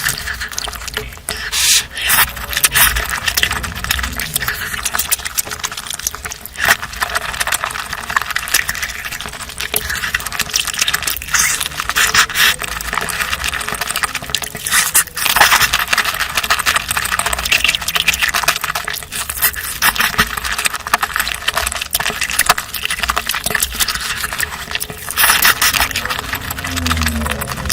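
Mouth sounds of someone eating: wet chewing, smacking and slurping, a dense, irregular run of clicks.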